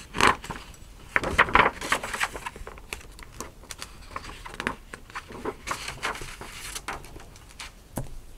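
Stiff pages of a hardcover picture book being turned and handled, a run of short, irregular paper rustles and flaps as the book is closed and laid down, with a sharp tap about eight seconds in.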